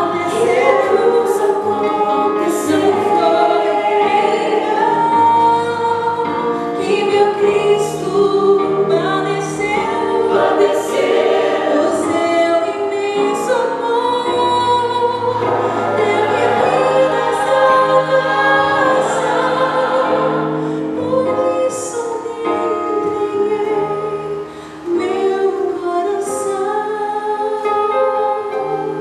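A woman singing a Christian song into a microphone over musical accompaniment, a melody of held notes above a steady bass line.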